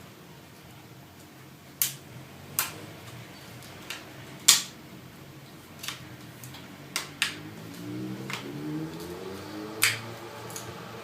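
Sharp, irregular clicks and taps of small laptop parts and tools being handled and fitted while reassembling a MacBook Pro's display hinge area, about ten in all, the loudest about halfway through.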